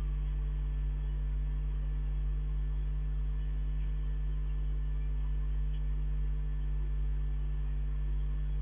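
Steady electrical mains hum: a low, unchanging drone with a few faint higher overtones.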